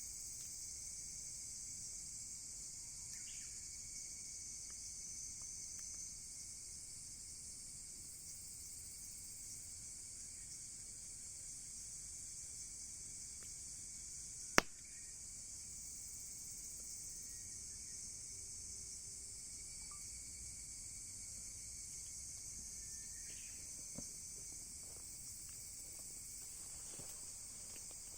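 A steady, high-pitched chorus of insects chirring. About halfway through, a single sharp crack stands out, typical of a wood fire popping, with a couple of fainter crackles later on.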